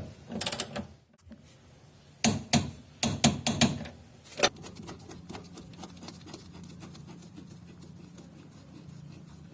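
Ratchet wrench clicking in short bursts as a front suspension bolt is run down to torque, with fainter scattered metal clicks and handling noise after about four and a half seconds.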